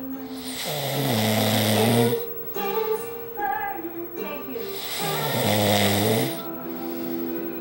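A man snoring loudly: two long snores about four seconds apart, each a hissing breath with a low buzz that falls in pitch. Music plays behind them.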